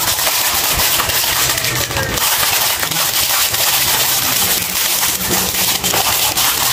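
Plastic bag crinkling and rolls of packing tape knocking and scraping on a tile floor as a puppy bites and shoves them, with many short clicks over a steady hiss-like background noise.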